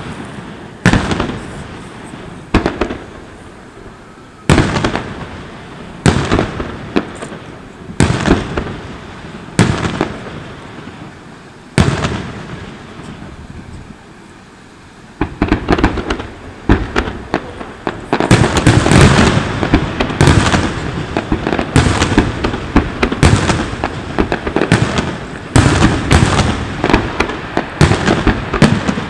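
Aerial fireworks bursting: single booms about every one and a half to two seconds at first, then from about halfway a dense, rapid barrage of bursts and crackling.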